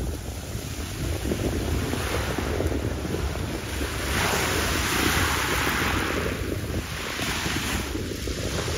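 Wind buffeting the microphone as a gusty low rumble, with a hiss that swells about four seconds in and fades about three seconds later.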